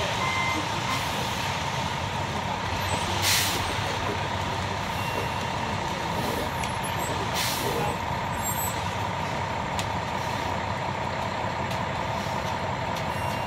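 Concrete mixer truck running steadily while it discharges concrete down its chute, with two short hisses of air about three and seven and a half seconds in. A few reversing beeps end right at the start.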